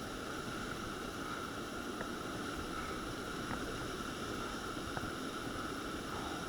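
Steady rushing of river whitewater, with a few faint ticks.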